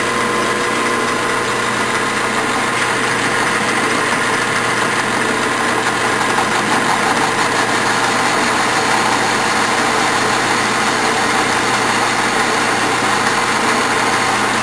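Clausing 12-inch metal lathe running steadily with its motor and gear hum, while a cutting tool takes a facing cut across the end of a cast aluminum cylinder.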